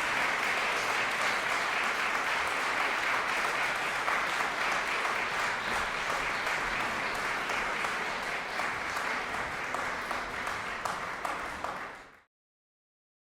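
Audience applauding, easing slightly, then cut off abruptly near the end.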